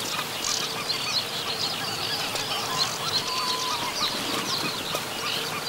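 Many birds calling at once: short high chirps and whistles overlapping, over a faint steady low tone.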